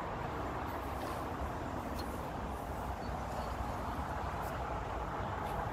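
Steady hum of road traffic, with a couple of faint ticks.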